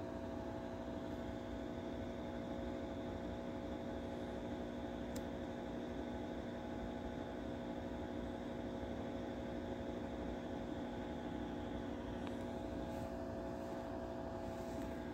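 Steady machine hum with several steady tones in it, unchanging throughout, and a faint click about five seconds in.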